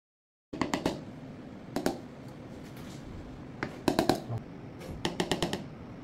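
Clusters of quick light taps and clicks of a utensil knocking against small containers while soap colourant is being prepared, starting abruptly about half a second in, over a steady low room hum.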